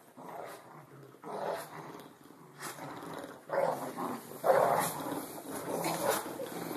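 Two dogs, an English bulldog and a small white dog, growling in irregular bursts while tugging on a rope toy.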